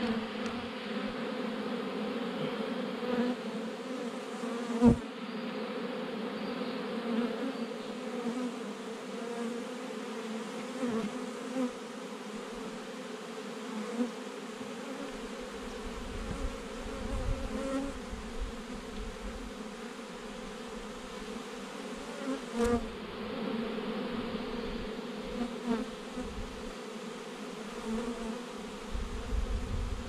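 Honey bee swarm buzzing steadily around a hive box as the bees settle into it, a continuous low hum. A sharp knock about five seconds in.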